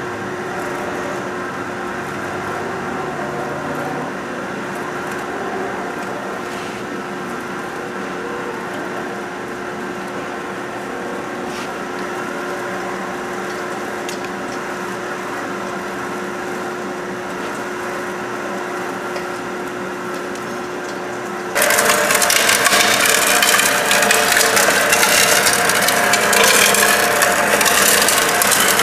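Ameri-Shred MJ-21001 plant waste shredder running steadily, its motor humming as the cutters chew through green plant stalks. About three quarters of the way through it turns suddenly much louder and harsher as it shreds a block of wood.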